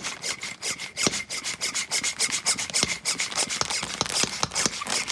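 Pump on the valve of a clear plastic vacuum storage bag full of clothes, drawing the air out. The plastic crackles and rubs quickly and unevenly as the bag collapses, over a thin steady high whine.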